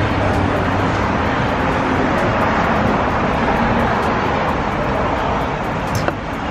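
Steady street ambience of road traffic, with a short click near the end.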